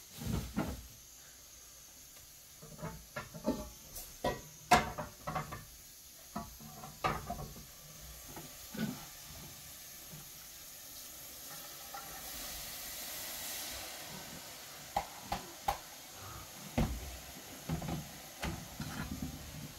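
Scattered knocks, clicks and clatter, with a soft hiss rising and fading about twelve seconds in.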